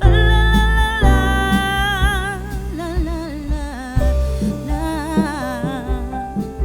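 Background music: a slow melody with strong vibrato over sustained bass and chords.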